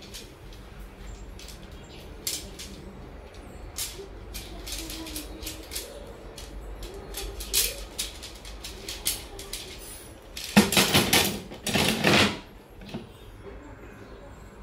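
Nylon tent fabric rustling and being handled, with scattered light clicks and two loud bursts of rustling about two-thirds of the way through.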